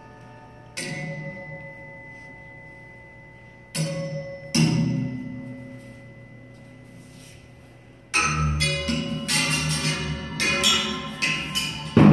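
Percussion music: single struck notes that ring on for a few seconds, then, from about eight seconds in, a quick flurry of strikes ending in a loud hit.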